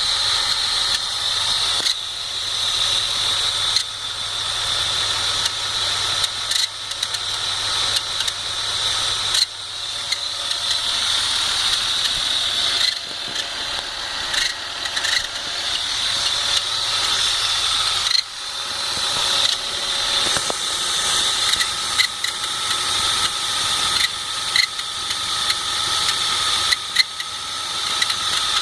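BMW 528i E39's straight-six engine running cold, with a steady high-pitched whine and irregular clicks and rattles from the accessory belt area: an unexplained cold-engine noise in the belt drive.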